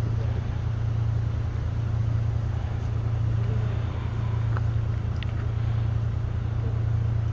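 Four-wheel drive's engine running at a steady low idle as the vehicle crawls down a steep rocky track, with a couple of faint clicks about halfway through.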